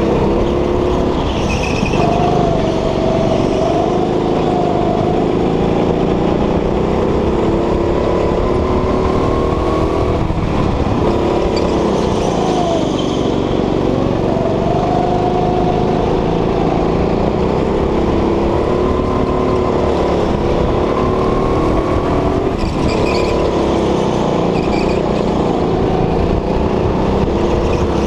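Go-kart engine heard from the driver's seat, running hard around the track, its pitch rising as it accelerates and falling back every few seconds into the corners. A few brief high-pitched chirps sound over it.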